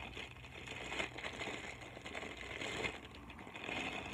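Maruchan instant-ramen packet crinkling in the hands while the dry noodle block inside crunches and cracks as it is squeezed, in irregular scratchy bursts with a few sharp clicks.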